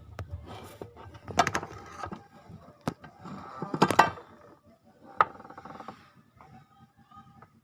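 Hand tools and metal engine parts clanking and knocking as parts are fitted, several sharp clanks with a short metallic ring.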